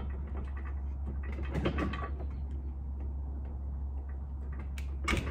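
Small metal handling sounds as a long bolt is turned and worked into the T-slot of a 1UP bike-tray rail: scraping and rattling, with a louder moment about one and a half seconds in and a few sharp clicks near the end, over a steady low hum.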